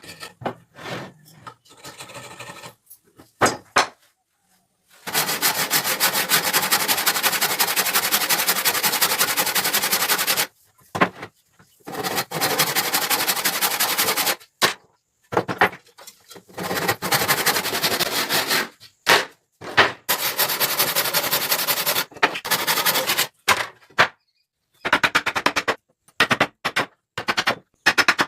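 A woodworking power tool run against wood in bursts of one to five seconds, each a fast, even rattle of strokes, with short knocks and clicks between the bursts. The longest run comes about five seconds in and lasts some five seconds.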